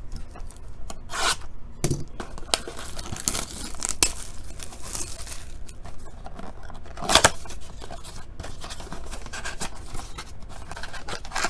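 A cardboard blaster box of trading cards being torn open by hand: tearing and crinkling with scraping, and several sharp snaps, the loudest about seven seconds in.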